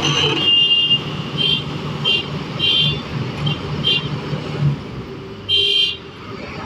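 Excavator diesel engine running steadily, with a series of short, irregular high-pitched squeals or tones over it; the longest comes about five and a half seconds in.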